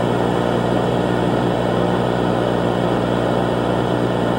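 A steady, unchanging engine drone with a low hum.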